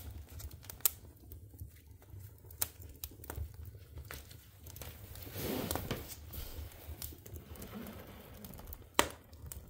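Split logs burning in an open wood stove, crackling and ticking, with sharp pops about a second in, near three seconds and near the end.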